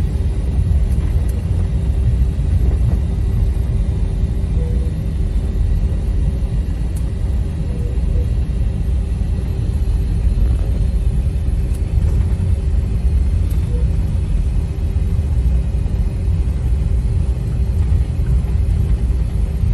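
Airliner cabin noise during taxi: a loud, steady low rumble from the engines and the rolling aircraft, with a faint steady hum above it.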